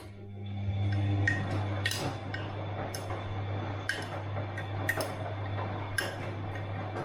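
Bosch washing machine turning its drum for about seven seconds: a steady motor hum under a wash of churning noise, with sharp clinks about once a second. It starts at the outset and stops just after the end.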